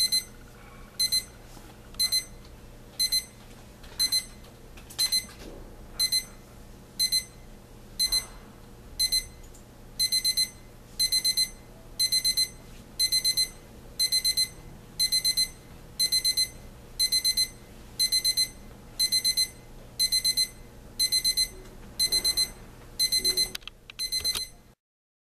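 La Crosse K86326 alarm clock's alarm beeping: a high electronic beep about once a second, which about ten seconds in turns into quick bursts of several beeps each second. It cuts off suddenly near the end.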